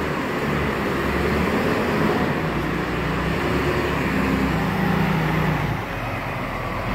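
Large Hoist forklift working at close range: a steady engine drone with a low hum that wavers in pitch as it moves.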